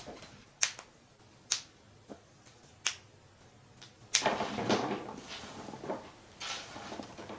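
Four sharp clicks or taps about a second apart, then about a second of rustling or scraping a little past the middle, and a softer rustle near the end.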